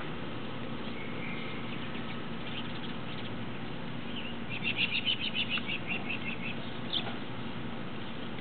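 A small bird calling: a quick run of about a dozen high chirps, about five a second, fading as it goes, about halfway through, then one more chirp a second later, over a steady background hiss.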